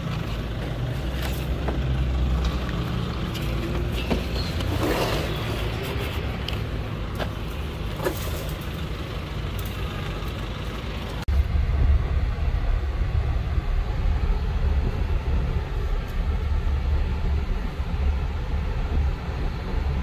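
Vehicle noise: a steady low rumble with a few knocks, then, after a sudden change about eleven seconds in, the louder low engine and road rumble of a Nissan pickup truck heard from inside the cab while driving.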